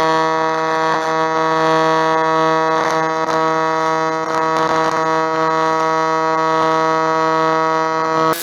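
A small electric motor running at a steady speed, giving an even, unchanging hum that cuts off suddenly at the end.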